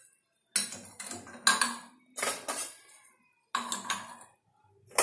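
Ceramic mugs clinking and knocking against a black metal wire plate stand as they are hung by their handles on its hooks: about four short bursts of clatter with silent gaps between.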